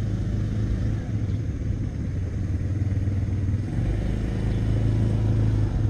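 An engine running steadily: a low, even hum that grows a little louder near the end.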